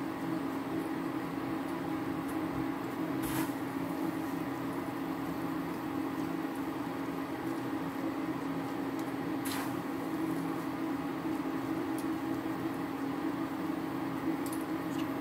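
A steady machine hum, even in pitch and level throughout, with a few short faint clicks, about three seconds in, about nine and a half seconds in, and near the end.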